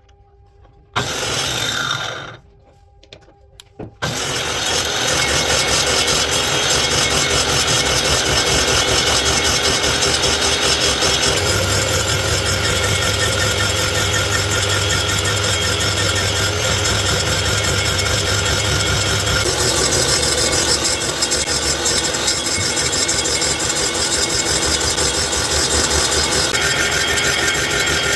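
A power tool working wood, running steadily with a dense, rasping noise that starts about four seconds in after a brief sound about a second in; its tone shifts slightly a few times as the work goes on.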